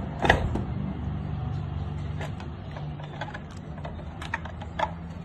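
Car engine idling steadily, with several sharp clicks at irregular moments over the hum.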